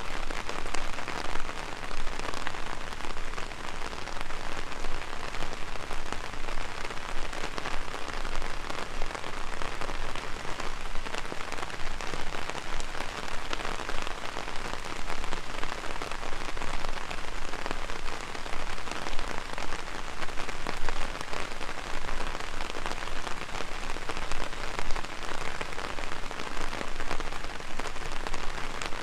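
Heavy rain falling on an umbrella, a dense, steady patter of drops.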